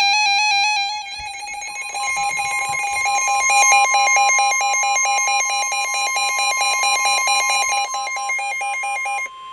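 Weather radio sounding a warning alert: a fast-pulsing beep, joined about two seconds in by the steady 1050 Hz NOAA Weather Radio warning alarm tone, which signals that a warning is about to be read. The pulsing beep stops just before the end while the steady tone holds.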